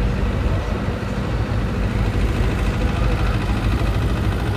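A heavy engine idling steadily, a low, even drone.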